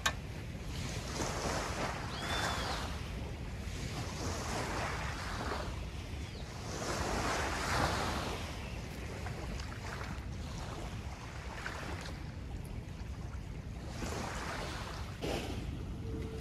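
Moving water and wind buffeting the microphone, swelling and fading every few seconds.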